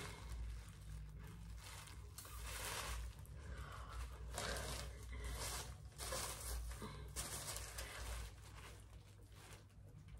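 Faint, irregular rustling and crinkling of plastic packaging being handled as a wig is unpacked.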